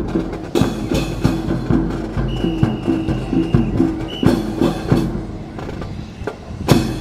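Recorded music with a steady beat playing over a rifle drill routine, cut by a few sharp knocks, the loudest near the start and just before the end, typical of drill rifles being slapped and handled in unison.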